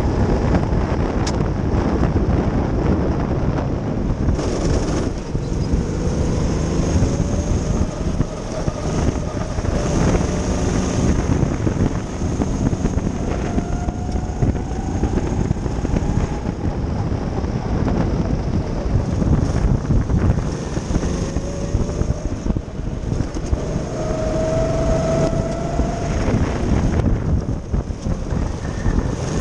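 Go-kart engine running hard, heard from on board, its pitch climbing over a few seconds at a time and then falling back, several times over. A dense rumble of wind buffeting the microphone runs underneath.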